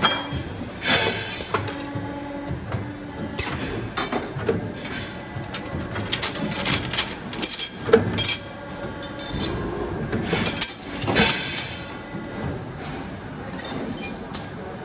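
A robot-fed CNC pipe bending machine running, with repeated metallic clanks and clinks as steel tubes are handled and bent, over a steady machine hum. One sharp clank about eight seconds in is the loudest.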